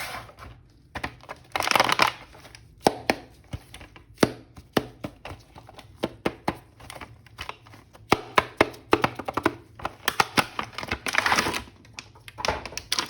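Hands unpacking a plastic action-figure toy: many sharp plastic clicks and taps, with two stretches of crinkling plastic packaging, about two seconds in and again near eleven seconds.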